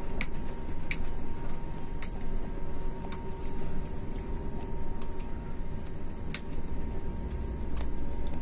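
Inside a moving bus: the engine's low rumble and road noise, with irregular light ticks and rattles from the cabin fittings about once a second, over a faint steady high tone.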